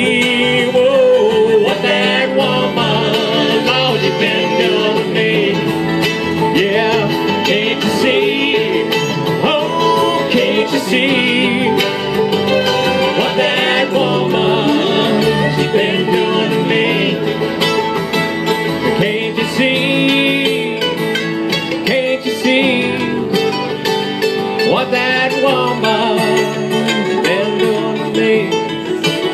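Live bluegrass band playing an instrumental break on fiddle, banjo, mandolin, acoustic guitar and upright bass, steady and full throughout.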